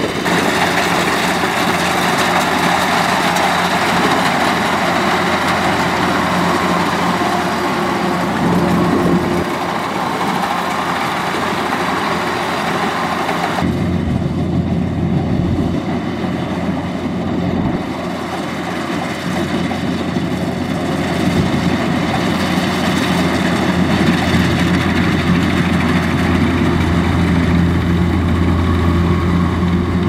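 Kubota crawler combine harvester's diesel engine and threshing machinery running steadily while cutting rice. About halfway through, the hiss fades and a deep low hum comes to the fore.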